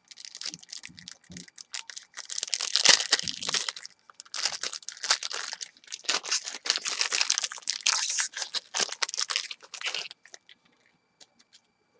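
A baseball card pack's wrapper being torn open and crinkled, in several rustling spells that stop a couple of seconds before the end.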